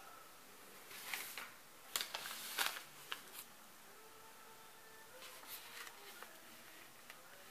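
Quiet room with a few soft rustles and clicks, mostly in the first three seconds.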